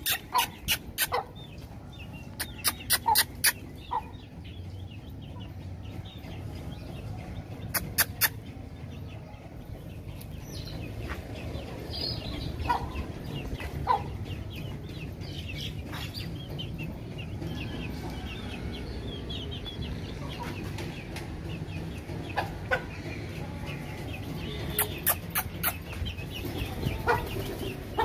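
Aseel hen clucking softly around her chicks, with several quick clusters of sharp clicks near the start, around three and eight seconds in, and near the end, and a steady low rumble underneath.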